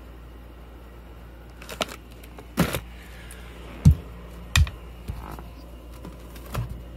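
Handling noise from a fireworks case being unpacked: about five scattered knocks and thumps of the cardboard box and plastic shell tubes being moved, the loudest a dull thump about four seconds in, over a low steady hum.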